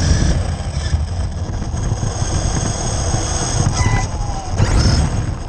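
Losi DBXL-E 1/5-scale electric desert buggy driving, its brushless motor whining over a steady rumble of noise, the whine rising and falling with the throttle.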